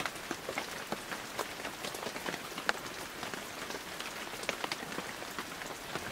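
Steady rain, with many separate drops landing close by as sharp ticks over an even hiss.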